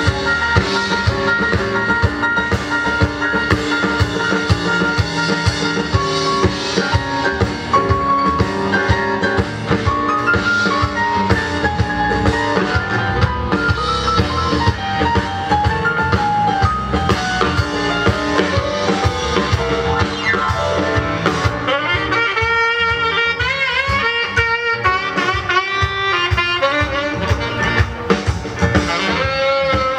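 Live soul band playing, with a drum kit keeping a steady beat under sustained keyboard and band parts. About two-thirds of the way through, a lead melody with heavy vibrato comes to the front.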